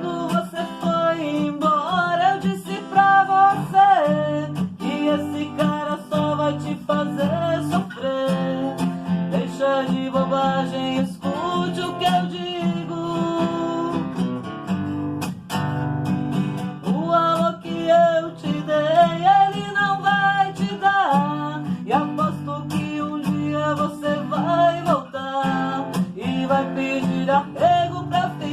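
Music: an acoustic guitar strummed steadily, with a melody line that slides up and down above the chords.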